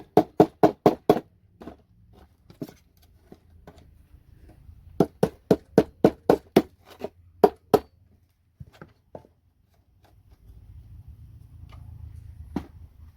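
Rapid runs of sharp knocks, about five a second, from circuit boards and connectors being handled and pried apart: one run right at the start and another about five seconds in, with scattered single taps between and after.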